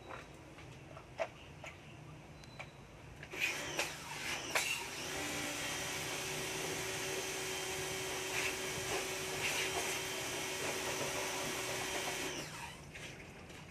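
Fujima HPB302 pressure washer starts about four seconds in. Its pump motor runs steadily with a humming whine under the hiss of the water jet, then stops about a second before the end. A few light knocks come before it starts.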